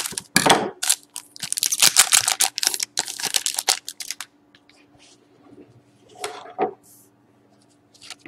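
Scissors cutting open a foil trading-card pack and the wrapper crinkling and crackling as the cards are slid out, dense for about the first four seconds. After that, quieter rustles and small taps of the cards being handled, with one more brief rustle about six seconds in.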